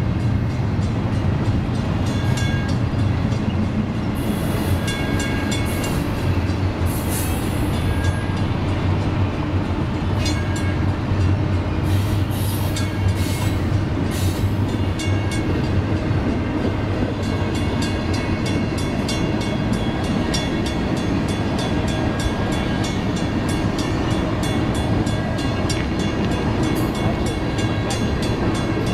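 BNSF double-stack intermodal freight train rolling past close by: a steady, loud rumble of wheels on rail, with faint high ringing tones and clicks coming and going above it.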